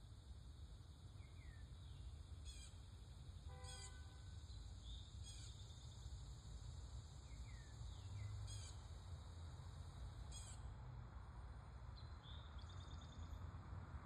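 Yard birds singing and calling: about five brief high trills spaced a couple of seconds apart, with short falling chirps between them. Underneath is a steady low rumble of distant traffic, and the whole is faint.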